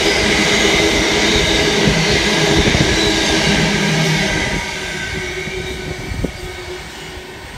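Container freight train's wagons rolling past close by, with steady high-pitched wheel squeal over the rumble of the wheels. About four and a half seconds in the sound drops and then fades as the last wagon passes and draws away.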